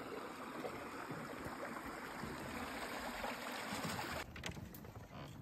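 River water flowing and gurgling steadily. About four seconds in it cuts off abruptly to a quieter background with a few knocks.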